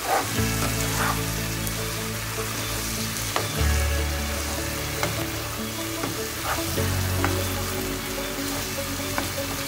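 Whole sea bream sizzling in onion masala in a frying pan, with a slotted spatula scraping and tapping the pan as the masala is spooned over the fish. Background music with sustained low notes plays underneath, changing chord twice.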